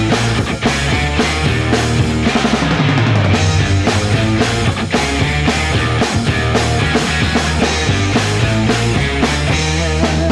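Background rock music with drums, guitar and a steady beat.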